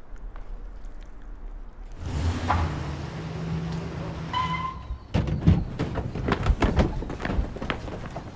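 Film soundtrack sound design. A low hum swells into a rushing, noisy build about two seconds in, with a short beep-like tone near its end. From about five seconds on comes a rapid series of sharp thuds and knocks.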